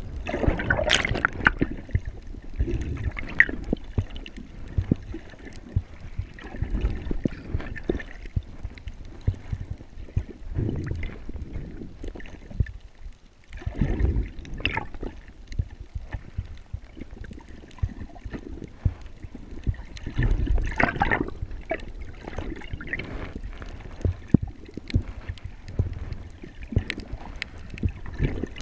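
Water sloshing and gurgling, muffled through a GoPro's underwater housing, with irregular swells and scattered clicks as the camera moves through the water.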